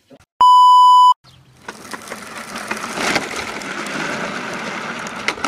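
A short, loud, steady beep, then the rolling noise of a child's low plastic tricycle's wheels on asphalt, building over a second or two and holding steady until it cuts off near the end.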